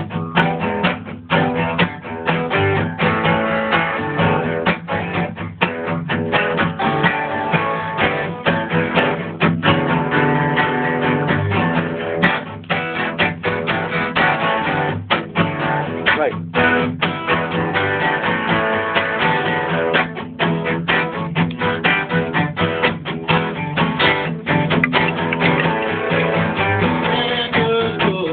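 Guitar being played, a continuous run of quick plucked notes and chords.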